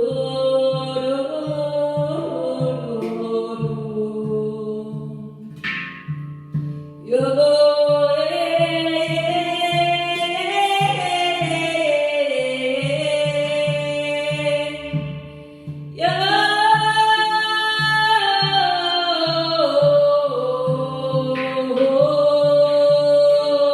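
Celtic-style vocal music: long, wordless sung notes that slide in pitch, with new phrases entering about seven and sixteen seconds in, over a steady low drone and a regular hand-drum beat.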